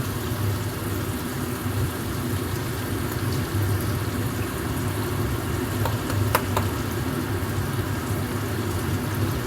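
Stir-fry of capsicum in sauce sizzling steadily in a pan over a low steady rumble, with a couple of light utensil clicks about six seconds in.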